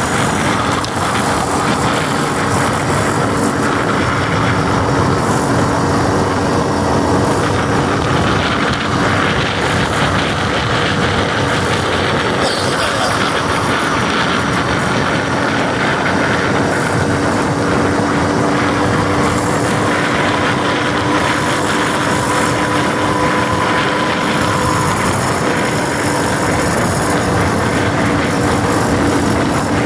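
Motorized bicycle's small engine running steadily at cruising speed under a dense rush of wind and road noise. A steady drone holds its pitch, rising slightly in tone for a few seconds past the middle.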